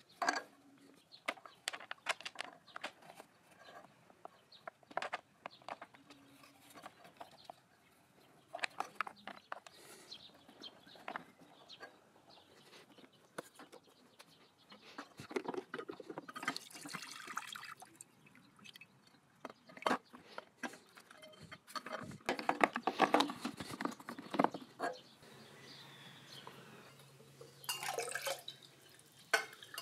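Scattered metal clicks and scrapes as an angled Torx wrench works the screw holding a motorcycle's plastic coolant overflow reservoir, with several bursts of liquid splashing and dripping as the old coolant is drained.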